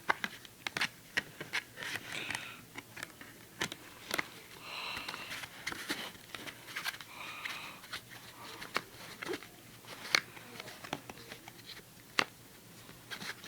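Plastic clicks and rustling as a Blu-ray disc is handled and pressed back onto its holder in the case, with many sharp clicks throughout.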